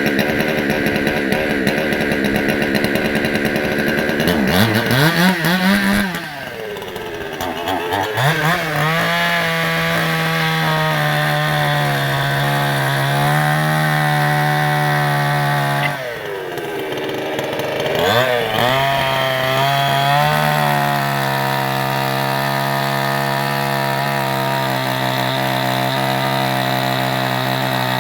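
Two-stroke chainsaw cutting wood. The engine revs up in a rising whine about five seconds in and again around eighteen seconds in, dips briefly after each, and then runs steadily at a lower pitch for long stretches.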